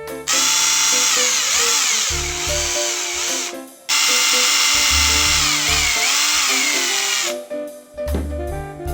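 A small electric drill running in two bursts of about three seconds each, its whine rising and falling in pitch as the speed changes, over background music.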